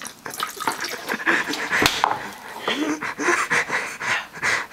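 A person panting with quick, hard breaths from the burn of very hot spicy food. A single knock sounds about two seconds in.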